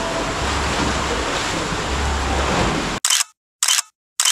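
Sea surf washing and rumbling in a rocky sea cave, with wind on the microphone. About three seconds in, the sea noise cuts off abruptly and camera shutter clicks follow in an even series, about two a second, with silence between them.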